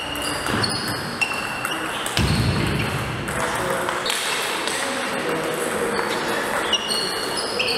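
Table tennis rally: the ball clicking and pinging off the bats and the table in an irregular back-and-forth of short, sharp hits.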